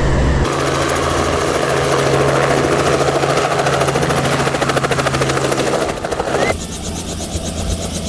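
Helicopter engine and rotor blades running steadily, with a rapid, even rotor chop. The sound changes abruptly about half a second in and again about six and a half seconds in.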